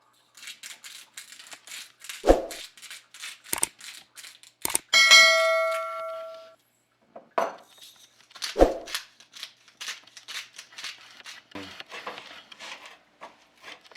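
Kitchen handling knocks, and about five seconds in a metal pan or utensil struck once, ringing with a clear bell-like tone for about a second and a half before fading.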